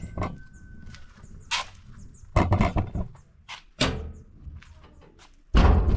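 Irregular thumps and scuffs, about five, the loudest near the end: handling noise from a camera carried against the body while a stick broom is moved over brick paving.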